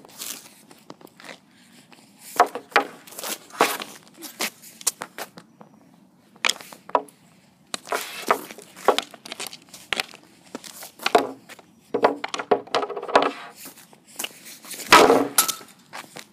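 Easton RS65 hockey stick blade clacking and scraping on a plastic shooting pad as pucks are pulled into place and shot, a long run of sharp, uneven clacks and knocks with short scrapes between them, loudest about fifteen seconds in.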